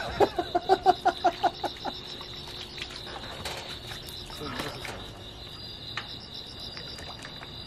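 A man laughs in a quick string of short bursts for about the first two seconds. Crickets chirp steadily throughout and are left alone after the laughter stops.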